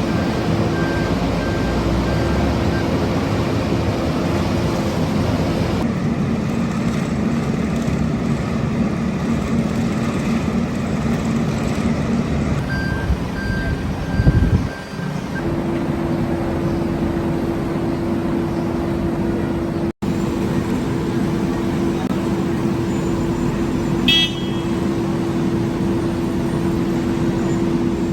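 Heavy road-works machinery at an asphalt milling and paving site, diesel engines running with a steady drone. Short runs of pulsed beeping come twice, a brief loud rumble about halfway through, and a short high toot near the end.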